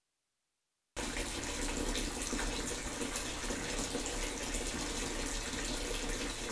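Water running steadily from a tap into a bathtub. It starts abruptly about a second in, after dead silence.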